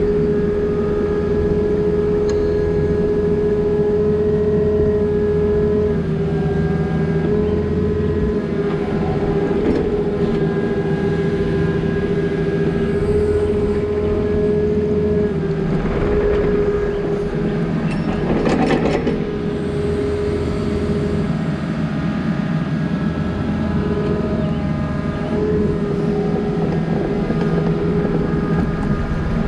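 Diesel engine of a compact earthmoving machine running steadily under work, with a strong steady whine over the engine hum. A short rattle about two-thirds of the way through.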